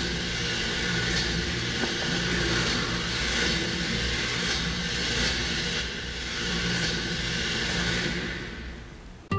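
A loud, steady rushing hiss over a low rumble, a theatre sound effect played in the staged scene. It fades out near the end.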